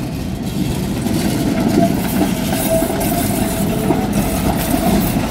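An ATM 4600-series articulated tram rolling past close by on street track: a steady rumble of wheels on rail with light clattering, and a steady mid-pitched hum.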